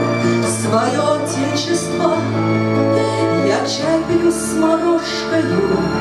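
A woman singing into a microphone over amplified backing music with long held bass notes.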